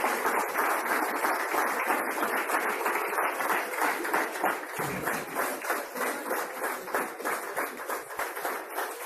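Audience applauding steadily: many hands clapping together.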